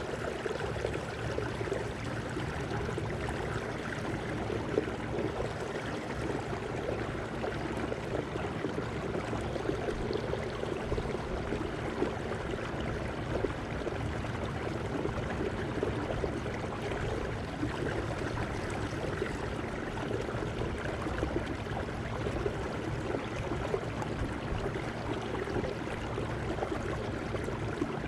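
Steady rush and gurgle of water along the hull of a kayak under way, with a faint steady hum from its Minn Kota Endura C2 30 electric trolling motor.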